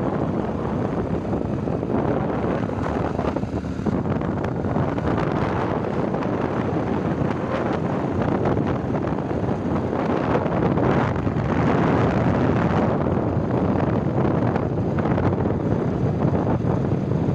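Wind buffeting the microphone of a moving motorcycle, mixed with the bike running along the road. A steady rushing noise with no clear pitch, a little louder in the middle.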